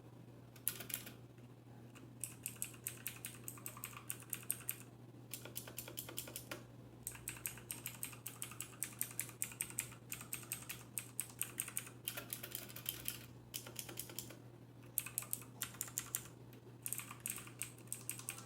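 Typing on a Redragon Mitra K551 mechanical keyboard with clicky Outemu Blue switches: fast runs of sharp key clicks in several bursts broken by short pauses. This clicking is the noise the owner names as the main drawback of these blue switches.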